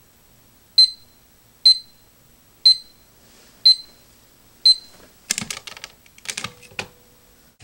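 LEGO Darth Vader digital alarm clock going off at 4:57 with five short, high-pitched beeps about a second apart. About five seconds in, a hand presses down on the figure's head, the button that stops the alarm, and a second or two of rough, noisy sound follows.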